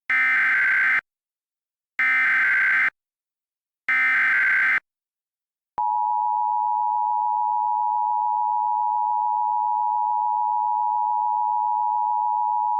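Emergency Alert System SAME header: three one-second bursts of screeching data tones. About six seconds in, the steady two-tone EAS attention signal starts and holds at a constant pitch, announcing the start of an alert message.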